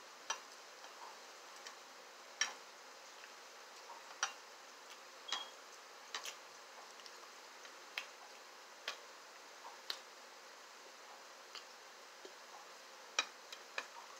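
A person chewing food with the mouth closed: sharp, irregularly spaced mouth clicks and smacks, about one every second or two, over faint hiss.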